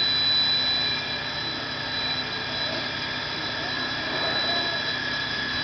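Steady mechanical drone with a thin, high, unchanging whine over it.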